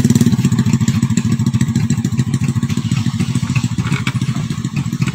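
Small motorcycle engine running steadily at low revs, an even rapid putter that eases off slightly in loudness as the bike crawls across the bridge planks.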